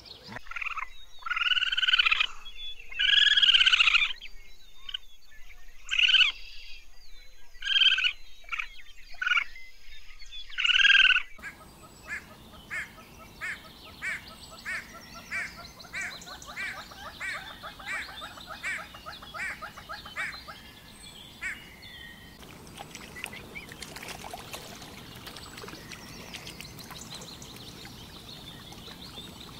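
Animal calls in three stretches: loud separate calls for the first eleven seconds or so, then an even series of short calls about one and a half a second, then a quieter stretch without distinct calls near the end.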